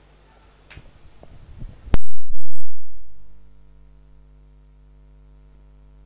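Faint background, then about two seconds in a sudden loud hit with a deep boom, followed by a low sustained synth chord that slowly fades. It is an edited-in sound effect leading into the replay.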